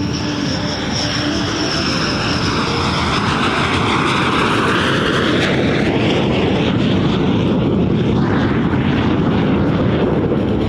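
Lockheed T-33 Shooting Star's single Allison J33 turbojet as the jet makes a pass: a steady rushing jet noise that grows slightly louder, with a hollow sweeping tone that dips and rises again a few seconds in as it goes by.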